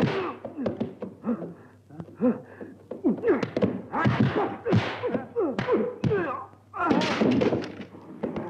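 Kung fu film fight sound effects: a run of dubbed punch and kick impacts, thuds and whacks, mixed with short shouted cries and grunts from the fighters.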